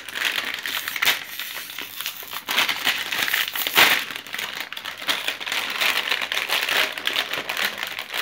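Foil blind bag crinkling and crackling as it is handled and pulled open by hand, with louder crackles about a second in and again just before four seconds.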